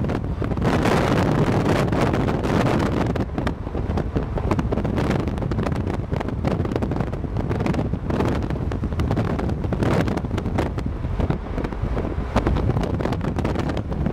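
Wind buffeting the microphone of a camera riding in a moving vehicle: a steady rush with rapid gusty bursts, over the vehicle's road noise.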